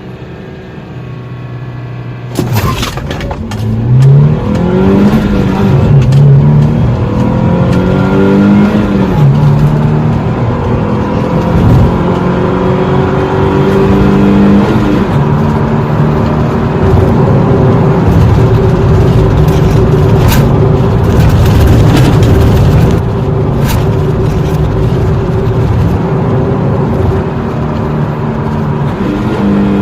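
Car engine idling, then about two seconds in it suddenly revs up and accelerates through the gears: engine pitch climbs and drops back at each gear change a few times, then holds at steady high revs for the second half, with a few sharp clicks along the way.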